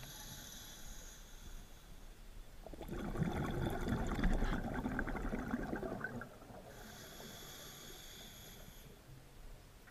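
Scuba diver breathing through a regulator underwater: a hissing inhale, then a louder burble of exhaled bubbles from about three to six seconds in, then another hissing inhale.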